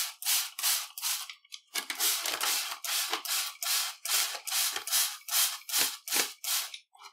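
Hand spray bottle pumped over and over, each squeeze giving a short hiss of water mist, about three a second, with a brief pause about a second and a half in. The water is sprayed onto potting soil inside a plastic bag.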